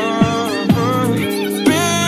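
Background music: a song with a singing voice over a steady beat, with deep thumps that slide down in pitch.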